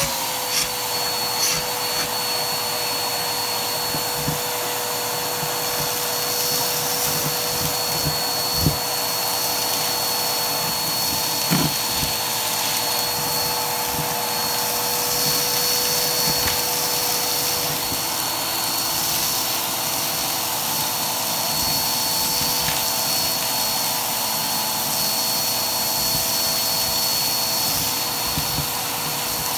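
Vacuum cleaner running steadily with a constant-pitched whine as its hose tool sucks up dirt and debris from carpet. Grit and small bits click and rattle up the hose now and then.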